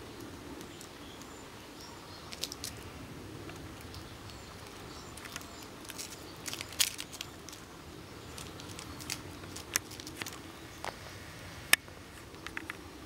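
Irregular light clicks and taps of a kitten pouncing and batting at a homemade string toy on concrete, its claws and the toy striking the ground. They come over a faint steady background hum, and the sharpest click comes near the end.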